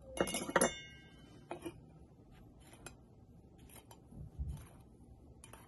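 Metal spoon clinking against a small glass bowl, the glass ringing briefly after a few sharp strikes just after the start, then lighter taps and scrapes as spices are spooned in and stirred, with a dull knock a little past four seconds and one more clink near the end.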